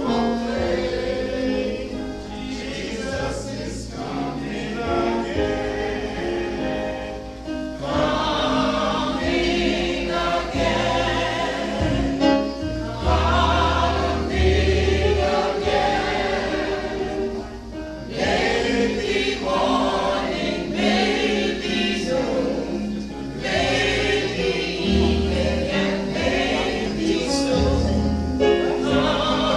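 A group of voices singing a gospel hymn together in chorus, with instrumental accompaniment that carries low bass notes.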